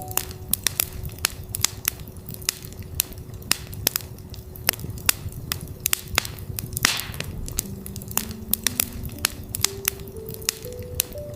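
Campfire crackling with frequent sharp pops and a low rumble of burning wood, over a steady 369 Hz tone. About seven seconds in there is a louder hissing pop, and from about eight seconds in soft tones step upward in pitch.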